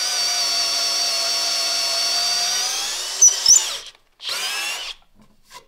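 Bosch GSB 12V-30 12-volt brushless cordless drill in low gear, boring a 14 mm hole in hard walnut: a steady motor whine under load. It stops a little before four seconds in with a couple of sharp clicks, then gives a short second spin about half a second later. At low speed the bit cuts through without trouble.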